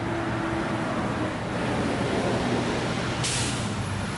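Steady roar of traffic and construction work from a nearby interstate highway, with a hiss joining in about three seconds in.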